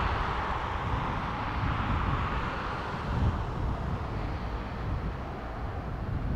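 A distant regional multiple-unit train approaching across open country, heard as a faint steady rolling rumble. Wind gusts buffet the microphone.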